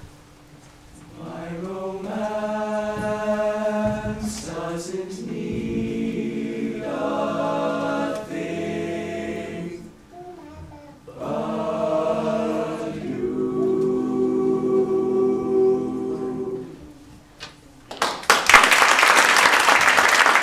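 Male a cappella group singing in close harmony through the last phrases of a slow song, ending on a long held chord. About a second after the chord stops, the audience breaks into loud applause.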